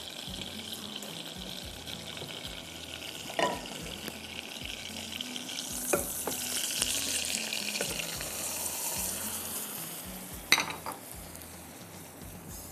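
Butter melting and sizzling in a saucepan on a gas burner while a wooden spoon stirs it, with three sharp taps of the spoon against the pan. The sizzle swells for a few seconds around the middle, then eases.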